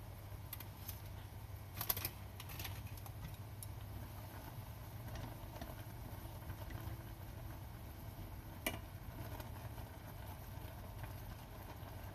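Chopsticks stirring instant noodles in a stainless steel saucepan, with a few sharp clicks of the chopsticks against the pot, the clearest about 2 s and 8.7 s in, over a steady low hum.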